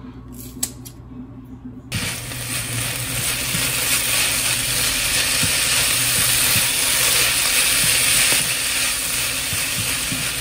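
Kitchen scissors snipping green onions a few times, then from about two seconds in, sliced beef, onion, carrot and scallions sizzling in a frying pan as they are stir-fried, with light knocks of the utensil against the pan.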